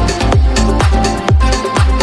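Electronic dance music with a steady pounding kick drum, about two beats a second, over sustained synth notes.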